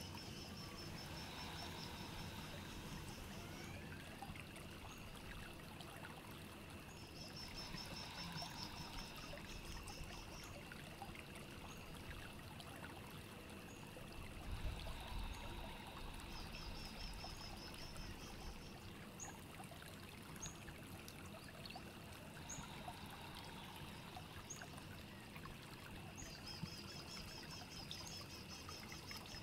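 Quiet, steady trickling water. A high chirping trill comes four times, each lasting a few seconds, and there is a brief low thump about halfway through.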